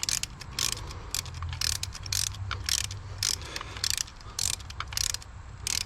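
Hand ratchet running down the coil pack fasteners, its pawl clicking in quick runs of strokes about twice a second. The bolts are only being snugged, not torqued.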